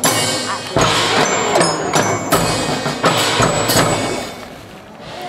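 The float's festival hayashi ensemble playing its march-like music: heavy drum beats about every three quarters of a second with other percussion, easing off about four seconds in and picking up again near the end.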